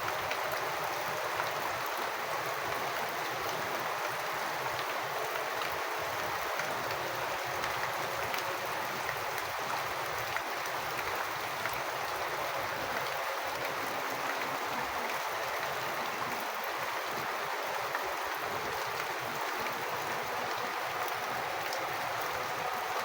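Rainwater falling and splashing in a steady rush, dotted with many small drips.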